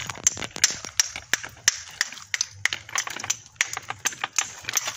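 A hammer striking pieces of natural stone cladding, trimming them to size: quick, irregular sharp taps, about three or four a second.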